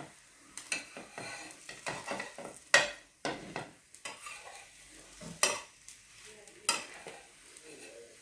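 A utensil scraping and clinking against a pan while saru chakli pitha (thin rice and semolina batter pancakes) cook, with a light sizzle underneath. The sharp scrapes come at irregular spacing of about one to two seconds, the loudest about three and five and a half seconds in.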